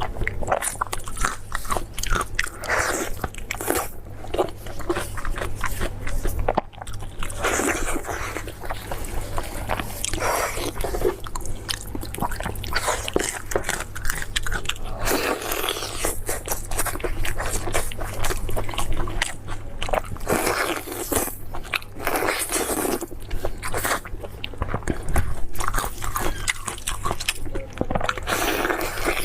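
A person biting and chewing offal balls close to the microphone: continual crunching and many small mouth clicks.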